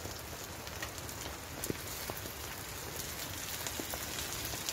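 Steady rain pattering on the tent fabric, with a few light clicks as a spoon stirs food in a metal frying pan.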